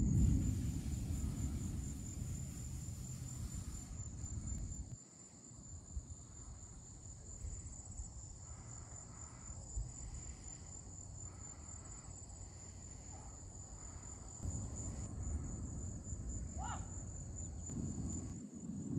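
Steady high-pitched trilling of an insect chorus, pulsing evenly throughout. Under it a low rumble fills the first few seconds, drops away about five seconds in, and returns in the last few seconds. A brief rising chirp comes near the end.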